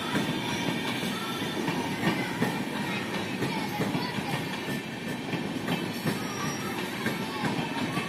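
Passenger express coaches rolling past at speed, their wheels clattering over the rail joints in a steady run of knocks, with a few brief faint wheel squeals.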